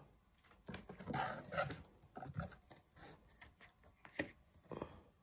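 Faint rustling and a few sharp clicks: a cable and packaging being handled in a cardboard box lined with bubble wrap.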